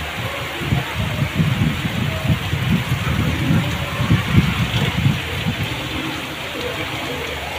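Heavy monsoon downpour pouring onto a road, with strong wind gusting against the microphone in low irregular rumbles that ease off near the end.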